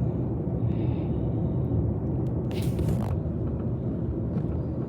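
Steady road and engine rumble inside a moving car's cabin, with a brief rustling hiss about two and a half seconds in.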